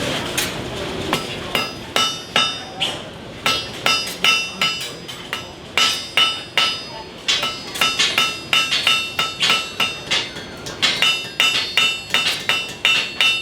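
Blacksmith's hammer striking hot iron on an anvil, the anvil ringing after each blow. The blows come in quick runs of about two to four a second, broken by short pauses.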